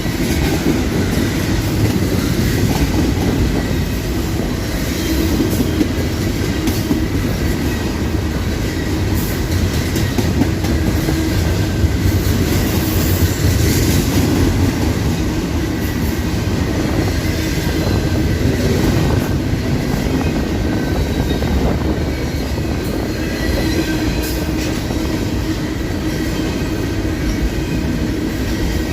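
Railcars rolling past close by: a steady, loud rumble of wheels on rail with scattered clicks from the wheels crossing rail joints and a faint thin wheel squeal.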